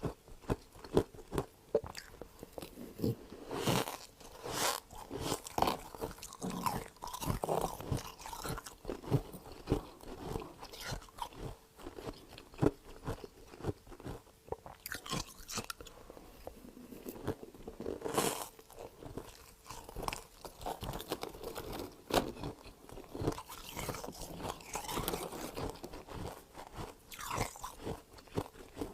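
Freezer frost being bitten and chewed close to the microphone: a run of irregular, crisp crunches.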